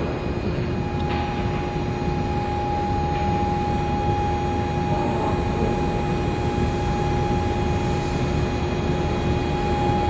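Industrial induction melting furnace running while scrap aluminium is charged: a steady rushing machine noise with a steady high-pitched whine that comes in about a second in and holds, plus fainter steady tones.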